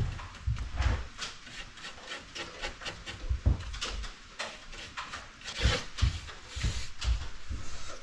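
A bristle brush scrubbing oil into sapele plywood in short irregular strokes, with occasional dull knocks of the panel and bench being handled.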